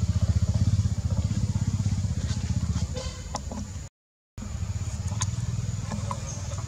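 An engine running steadily, a low even pulsing, cut off briefly by a half-second gap about four seconds in.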